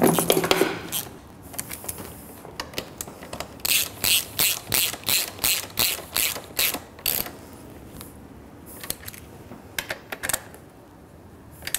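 Hand socket ratchet clicking in short runs as it turns down the fuel tank's top mounting bolts, about three clicks a second at its steadiest, with pauses between the runs.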